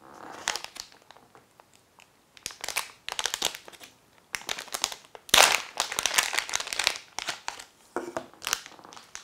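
A clear plastic bag crinkling and rustling as hands open it and pull out the circuit board inside, with a dense run of crackles in the middle and the loudest crackle about halfway through.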